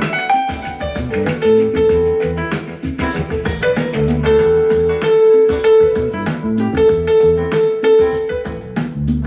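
Instrumental music with guitar and piano over bass and a steady drum beat, one guitar note held long through the middle.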